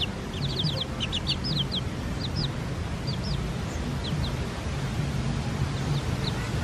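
Chicken chicks peeping: a quick run of short, high peeps in the first couple of seconds, then scattered single peeps.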